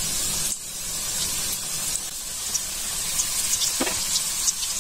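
Chicken spring rolls deep-frying in hot oil in a kadai: a steady sizzle with scattered small crackles.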